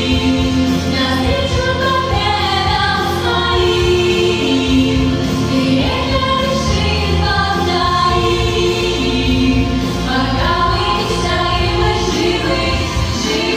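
A group of voices singing together over a musical backing track, with long held notes that change pitch every second or two.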